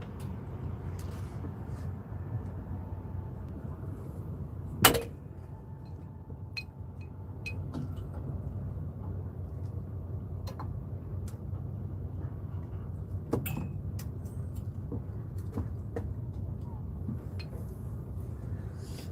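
Steady low drone of a fishing boat's engine, with scattered small clicks and one sharp knock about five seconds in.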